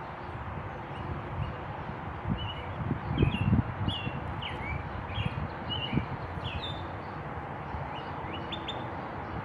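Small birds chirping in short, scattered notes, some sweeping down in pitch, over a steady hiss. A few low rumbling thumps about three seconds in are the loudest part.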